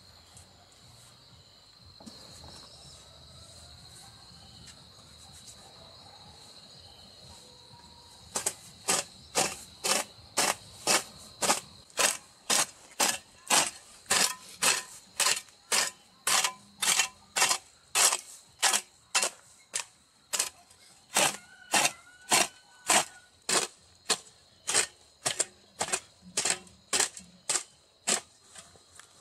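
A steady high insect drone. About eight seconds in, a loud regular rhythm of short strokes starts, about two a second, and stops shortly before the end.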